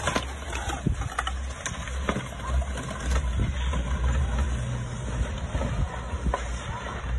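Steady low rumble and hiss of riding a chairlift, picked up on a phone, with scattered light clicks.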